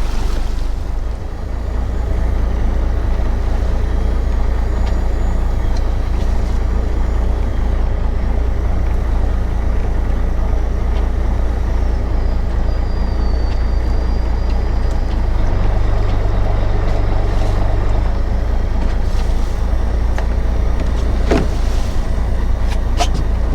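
Fishing boat's engine running steadily with a constant low hum, and a few knocks near the end.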